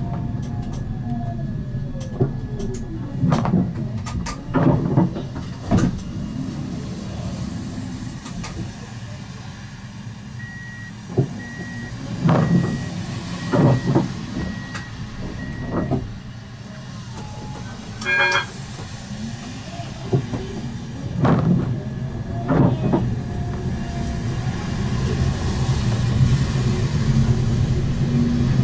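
Siemens Avenio low-floor tram at a stop: a steady low hum, with the motor pitch falling at the start as it comes to a halt. Midway there is a run of about six evenly spaced high beeps, the door-closing warning, then a short ring. The hum builds again near the end as the tram pulls away.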